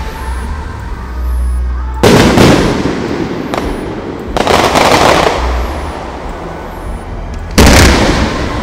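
Aerial firework shells bursting: a loud boom about two seconds in, a smaller bang, a longer rougher burst just after the middle, and another loud boom near the end, each trailing off in a rumble.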